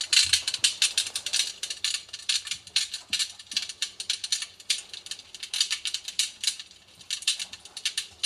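Recorded crackling wood fire played through the small speaker of a homemade electric fireplace, from a sound module salvaged from a USB speaker. It is a dense, irregular run of sharp pops and crackles.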